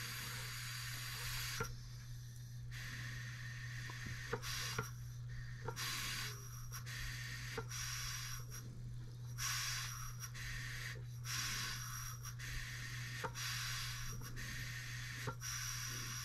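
Compressed air hissing through a model Stuart beam engine's cylinder and valve in on-off bursts about a second long as the flywheel is turned by hand, with a few light mechanical clicks. The engine is not yet running on its own, its valve timing being off, on air at about 7 psi.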